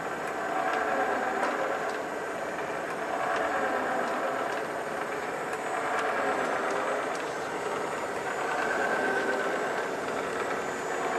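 Steady mechanical running hum of machinery, with slowly wavering tones over a noisy whir.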